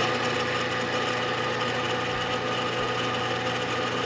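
Milling machine spindle running at a steady speed while a center drill is fed into a magnesium workpiece: a steady, even hum with several fixed tones.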